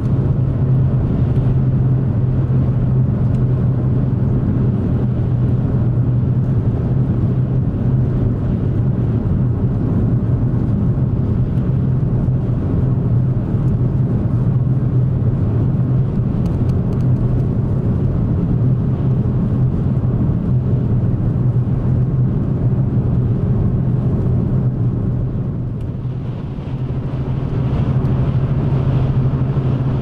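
Steady low drone of a car driving at highway speed, heard from inside the cabin, with high wind rushing against the car. It eases briefly near the end.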